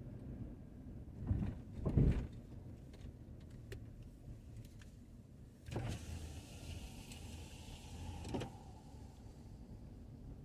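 A car's electric power window motor running for about three seconds, starting and stopping abruptly, over the low rumble of a car rolling slowly. Two low thumps come in the first couple of seconds.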